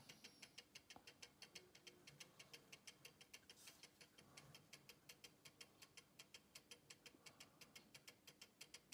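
Faint, even ticking of a newly assembled Breguet-style carriage clock movement running on a light wind: its half-dead-beat anchor escapement ticks about five times a second.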